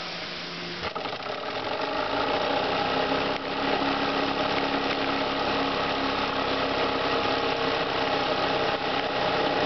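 Model stationary steam engine running, its flywheel driving line shafts and models through thin belts. It picks up about a second in, grows louder for a couple of seconds, then runs steadily.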